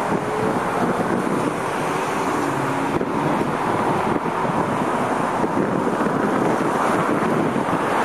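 Steady outdoor noise of road traffic mixed with wind on the microphone, with no distinct events.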